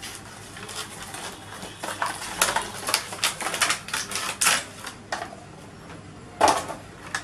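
Cardboard box being opened and a clear plastic clamshell tray slid out and put down on a table: a run of quick crackles and clicks, with one louder knock near the end.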